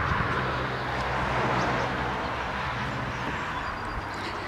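A low, steady engine hum with a rushing noise that swells about a second and a half in and then slowly fades, like a motor vehicle going by.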